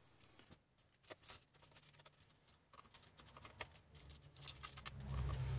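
Faint crinkling and scratching of aluminium foil as it is pressed onto a laptop motherboard and cut open with a utility knife around the graphics chip, in scattered small clicks that grow into a louder rustle near the end.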